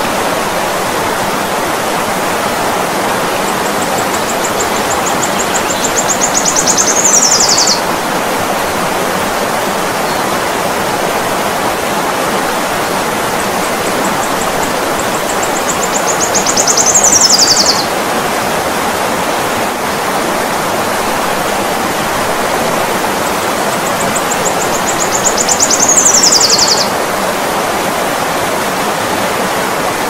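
Steady rush of a fast-flowing stream over rocks. Three times, about ten seconds apart, a hummingbird gives a high, rapid chittering phrase that ends in a falling sweep.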